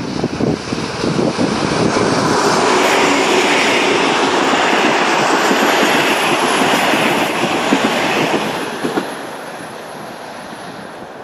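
A V/Line diesel locomotive and its passenger carriages pass close by on the rails, loud for several seconds as the carriages roll past, then fading away about three-quarters of the way through.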